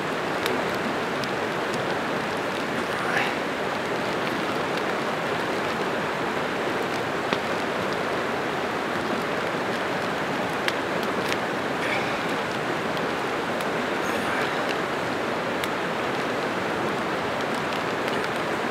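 Creek water rushing steadily, with a few faint clicks scattered through it.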